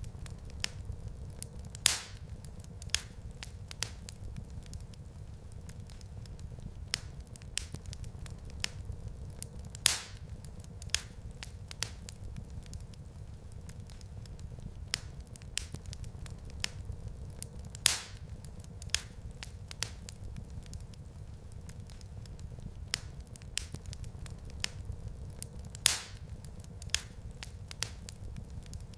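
Wood fire crackling in a fireplace: many small sharp snaps over a steady low rumble of the flames. A louder pop comes about every eight seconds.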